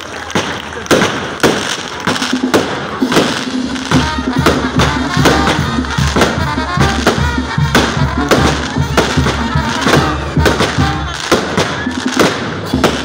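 Fireworks from a castillo pirotécnico going off in a rapid run of sharp bangs and crackles, several a second, as shells burst overhead. Music plays underneath.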